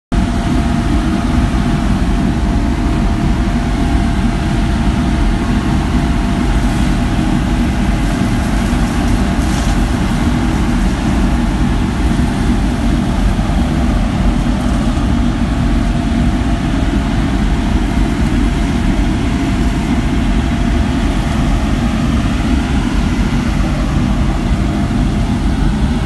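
Road sweeper truck's vacuum system running steadily at a constant level, pulling air through the hand-held suction hose and nozzle.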